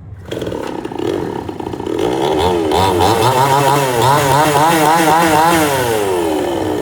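Chainsaw engine starting up and being revved, its pitch swinging up and down about twice a second, then dropping back toward idle near the end.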